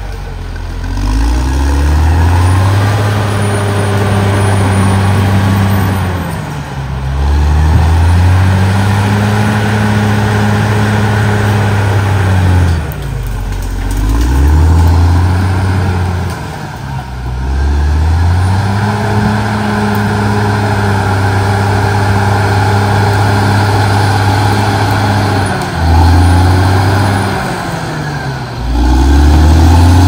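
Caterpillar D6R XL bulldozer's diesel engine working hard while pushing dirt with its blade. The engine drops in pitch and climbs back up again about five times, holding steady in between.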